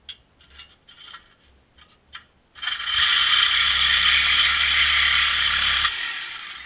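Reciprocating saw cutting through a steel exhaust pipe: a few light taps and clicks as the blade is set against the pipe, then about three seconds of loud sawing that starts about two and a half seconds in and stops abruptly, trailing off near the end.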